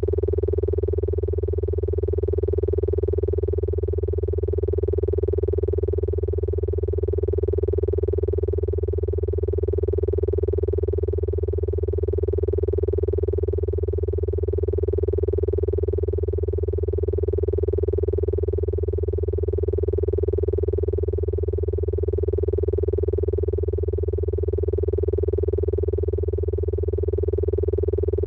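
Old computer humming: a steady, deep electrical hum with a higher tone held above it, swelling gently every two to three seconds.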